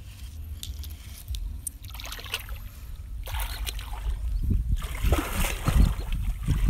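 A person wading through shallow muddy water, with legs sloshing and splashing water, getting louder and more frequent about two-thirds of the way in. A steady low rumble runs underneath.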